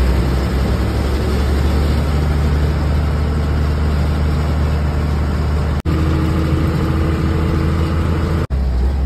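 Bus diesel engine running with road noise, heard from inside the cabin as a steady low drone. The sound drops out briefly twice, about six and eight and a half seconds in.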